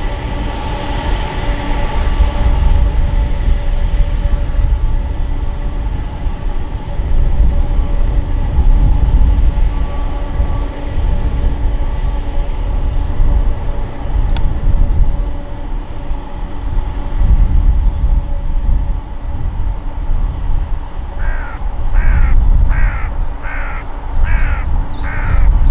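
Jet engines of a taxiing Boeing 767 running at low power, a steady whine over a deep, uneven rumble. Near the end a crow caws about seven times in quick succession.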